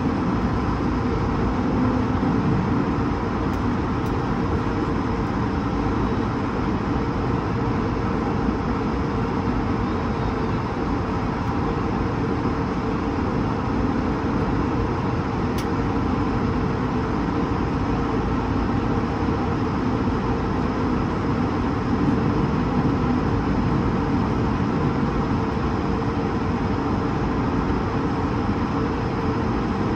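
Steady cabin noise inside an Airbus A220-300, its Pratt & Whitney geared turbofans running: a constant rush of airflow with a low engine drone and hum, unchanging throughout.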